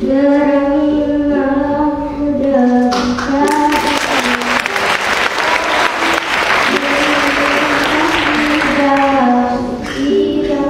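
A child singing into a microphone with ukulele accompaniment; about three seconds in the audience breaks into loud applause over the song, which fades out shortly before the end while the singing carries on.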